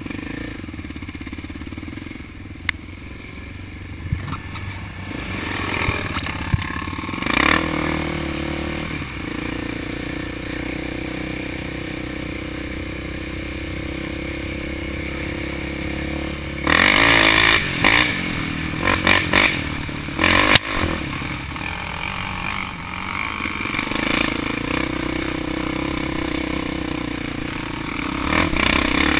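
Sport ATV engine running under way, its pitch rising and falling as the rider shifts and accelerates, heard from a camera on the quad's handlebars. A cluster of loud, harsh bursts of noise cuts in over it about two-thirds of the way through.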